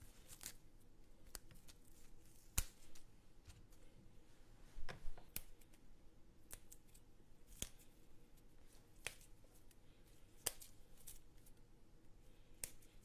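Faint room tone broken by sharp, isolated clicks and light taps, about one every second, the loudest about two and a half and five seconds in.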